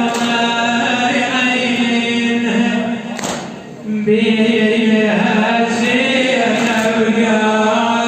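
A man chanting a Shia lament for Karbala in a traditional vocal style, with long held notes that slide in pitch and a brief break, as for a breath, about three seconds in.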